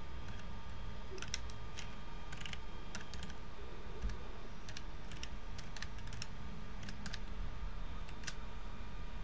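Computer keyboard typing: irregular key clicks, with a few pauses, over a low steady hum.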